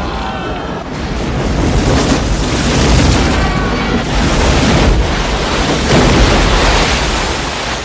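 Film crash sound effects: an airliner fuselage crashing through trees and skidding across water, a heavy continuous rumble of crashing and splashing spray that swells in several surges and eases near the end.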